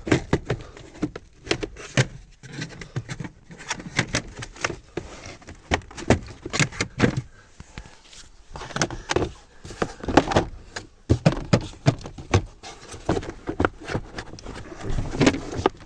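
Irregular plastic knocks, clicks and rattles as a car glovebox is pushed and worked back into its place in the dashboard, one lower clip not seating.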